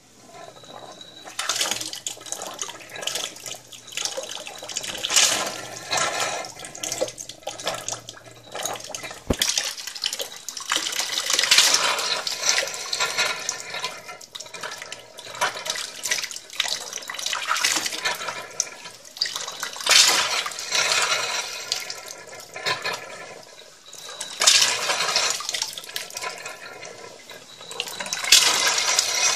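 Water tap running in uneven surges, snoring and growling, loud rushes of water coming every second or two with a rough pitched note in them.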